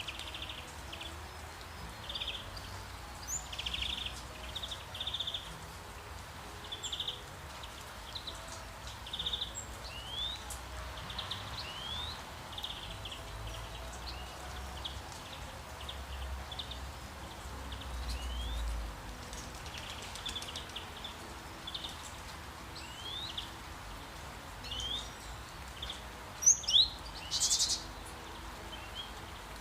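Songbirds chirping and calling over and over: short trills and quick rising whistles, with a couple of louder, sharper calls near the end, over a steady faint background hiss and low rumble.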